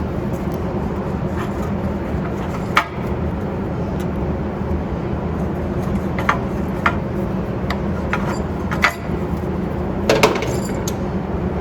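Scattered sharp clicks and clinks of hand tools on metal brake parts, over a steady low hum.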